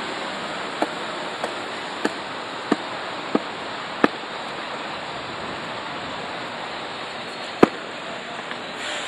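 Blackpool & Fleetwood box car tram No. 40 running away along the street track under a steady rushing noise. A run of six sharp clicks comes about every two-thirds of a second in the first four seconds, and one louder click follows near the end.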